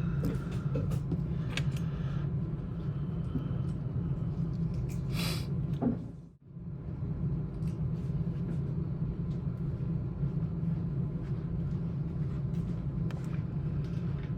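Dental lab handpiece motor running with a steady low hum while working the acrylic along the denture crack. It winds down to a stop about six seconds in and starts up again.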